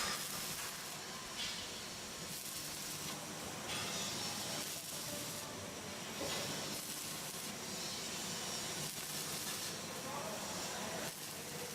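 Electric arc welding: the arc gives a crackling hiss that swells and dips unevenly.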